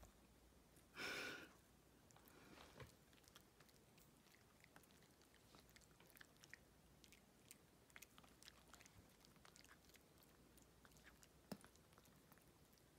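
A toy poodle puppy mouths and gnaws a hard dental dog chew: faint, scattered little clicks and crunches, with one short breathy puff about a second in.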